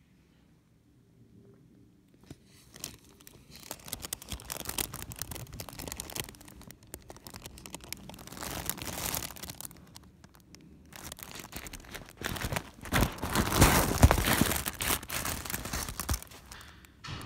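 The crinkly fabric of a pop-up cat tunnel rustling and crackling as a cat shifts about inside it. The rustling starts about two seconds in, comes in uneven spells, and is loudest near the end.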